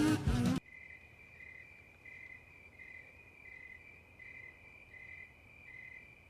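Music cuts off about half a second in, leaving insects trilling: a faint, steady high trill with a second note pulsing beneath it about every two-thirds of a second.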